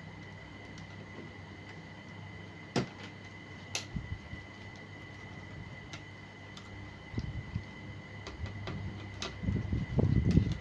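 Handling noises over a faint steady hum: two sharp clicks a few seconds in, then low knocks and bumps that grow louder near the end.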